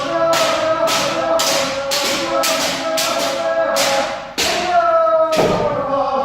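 Kendo class drilling: several voices holding a long kiai shout, breaking off for breath about four seconds in, over sharp impacts about twice a second from the drill's strikes and stamping footwork.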